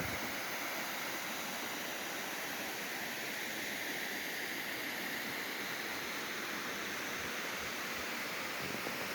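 Waterfall's falling water making a steady, even rushing noise, with a few faint low thumps near the end.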